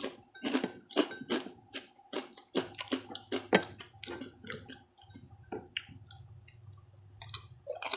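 Close-up wet chewing and mouth clicks from someone eating pork chicharon, a quick irregular run of small smacks and ticks.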